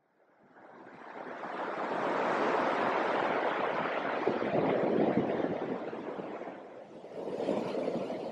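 Ocean surf washing up a sandy beach: a steady rush that swells in over the first second or two, eases off about seven seconds in and rises again near the end.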